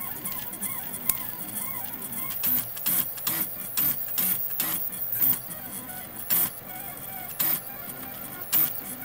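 Filament 3D printer at work: its stepper motors whine in short rising-and-falling tones as the print head moves, broken by frequent brief, louder bursts from quick head movements.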